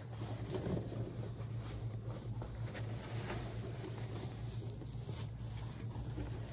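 White packing wrap rustling and crinkling as it is lifted out of a shipping box, over a low steady hum.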